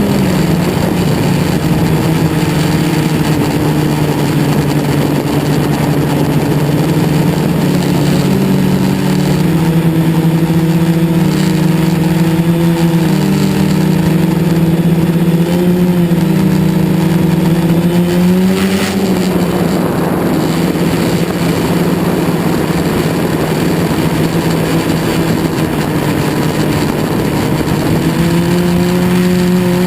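Brushless motors and propellers of a quadcopter in flight, a steady hum whose pitch wavers up and down with throttle changes through the middle stretch. A brief click comes about two-thirds through.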